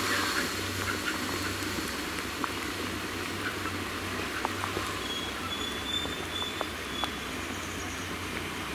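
Thick coconut and curd gravy with elephant yam pieces bubbling at a rolling boil in a steel pot, with scattered pops of bursting bubbles over a steady low rumble and hiss from the gas burner. The boil is reducing and thickening the curry.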